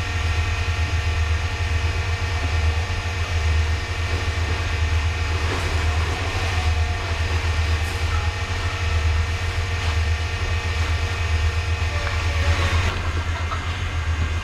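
Steady low mechanical rumble with a constant hum of several tones, like machinery running continuously; faint short chirps break through now and then.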